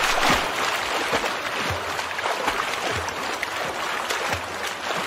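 Swimming splashes: water sloshing and splashing steadily, with a dull low thump about every second and a half.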